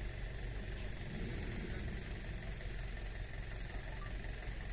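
Steady low rumble of an idling safari vehicle engine.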